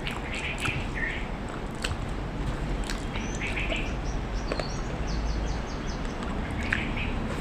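Birds chirping, with short calls scattered through and a quick run of high notes about two-thirds of the way in, over steady background noise. A few sharp clicks can be heard.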